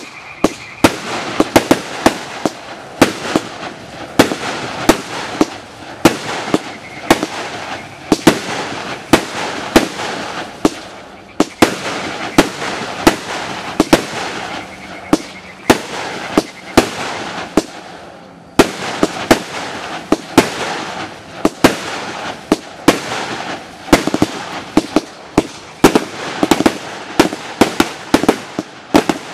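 A firework battery (cake) firing shot after shot: sharp launch thumps and aerial bursts come about one or two a second over a steady crackle, with short lulls about eleven and eighteen seconds in.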